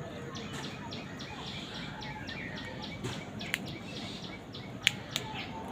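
Small birds chirping over steady outdoor background noise, with a short high note repeated about three times a second. A few sharp clicks come near the end.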